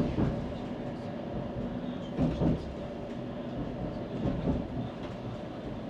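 Edinburgh Tram (CAF Urbos 3 tram) running along a street, a steady rumble of the moving tram heard from on board, with a couple of brief louder sounds about two seconds in.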